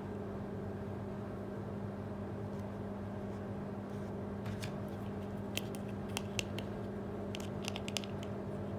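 Small plastic toy pieces clicking and tapping as they are handled, in a few scattered groups over the second half, over a steady low hum.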